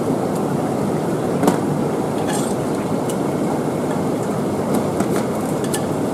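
A steady low rumble fills the background, with a few sharp clicks and crunches as scissors snip into spiny sea urchin shells, the sharpest about a second and a half in.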